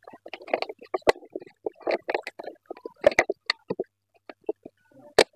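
Irregular crackling and rustling of a clear plastic bottle and its plastic lining being handled, with a few sharp clicks, two close together about three seconds in and one near the end.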